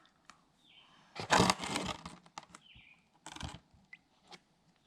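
The pressure washer's fuel tank is being handled and shaken, with water and dirt left in it: a loud rustling clatter for about a second, a shorter one a little later, and light clicks in between.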